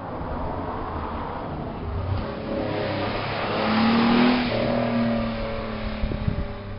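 A 1985 Pontiac Fiero GT's engine and exhaust running, swelling to a peak about four seconds in and then easing off, with a few sharp knocks near the end.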